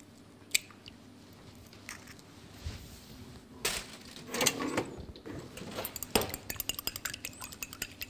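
Egg being beaten with a fork in a glass bowl. A few scattered clinks at first, then quick, steady clinking of the fork against the glass near the end.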